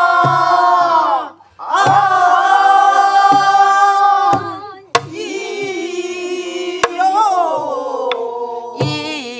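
A group of students singing a Namdo (southwestern Korean) folk song in unison, with long held notes bent and shaken in the Namdo style, broken by short breaths. Buk barrel drums keep the rhythm: a few deep thumps on the drumhead, and twice a sharp crack of the stick on the drum's wooden body.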